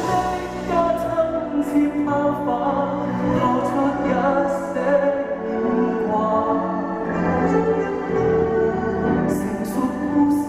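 Live music: a Chinese orchestra playing a slow ballad, with a male singer's voice.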